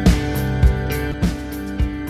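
Background music: sustained tones over a steady beat, about one beat every 0.6 seconds.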